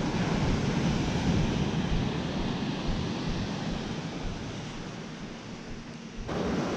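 Ocean surf breaking on the beach mixed with wind rumbling on the microphone, a steady noisy wash that changes abruptly near the end.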